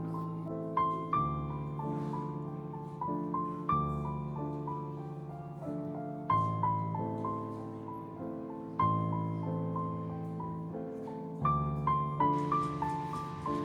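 Background music: a gentle piano melody of single notes over sustained chords.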